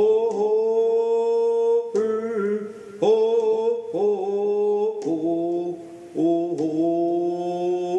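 Chant-like singing in long held notes, a higher melody line over a lower sustained voice, changing pitch every second or two.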